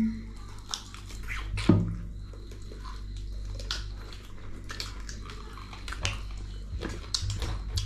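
Wet eating sounds: chewing and mouth smacks while handling food, with scattered small clicks over a steady low hum.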